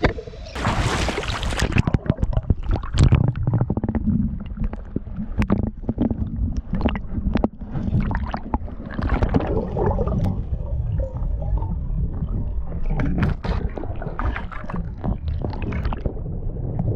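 Shallow seawater splashing and gurgling around a GoPro as it is dunked in the surf, with a loud splash about half a second in, then muffled underwater rumble and irregular sharp clicks of water and knocks against the camera housing.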